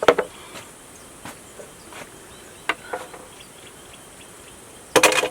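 Steady high-pitched buzzing of insects such as crickets, with a few sharp clicks and a brief loud clatter near the end.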